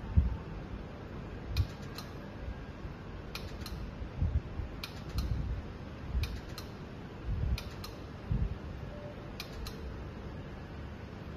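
Laser repair machine for LCD panels clicking as it fires: a sharp double click every couple of seconds, over a steady fan hum, with a few low thumps between.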